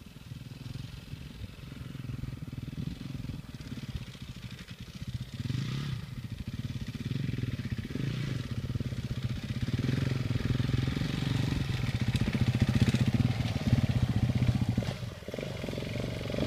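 Off-road trail motorcycle engines running, a dense pulsing engine note that grows steadily louder as bikes ride up the rough track, with the revs rising and falling now and then.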